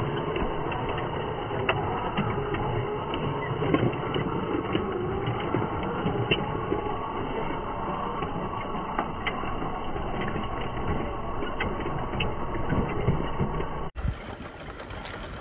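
The electric motors and gearboxes of 1:16-scale RC trucks run steadily as they drive over dirt and rock, with scattered small clicks. The sound is dull, with no high end.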